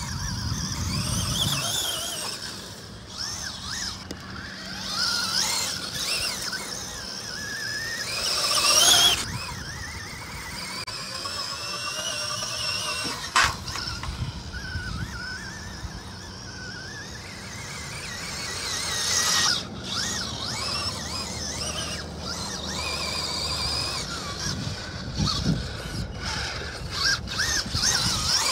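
Electric RC trophy truck's motor whining, the pitch sliding up and down again and again as the throttle is worked, loudest in a surge about nine seconds in. A single sharp click about halfway through.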